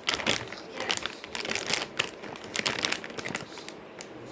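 Irregular crinkling, scraping and clicking from handling the flour-and-soap slime mixture, its bowl, spoon and flour packet.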